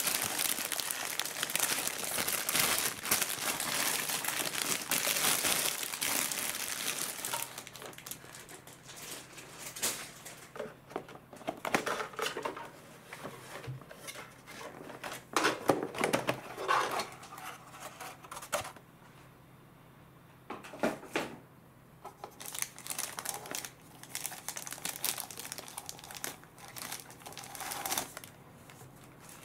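Clear plastic wrapping crinkling as hands handle it and pull it off a boxed popcorn bucket. The crinkling is dense and continuous for about the first seven seconds, then comes in scattered short crinkles and rustles.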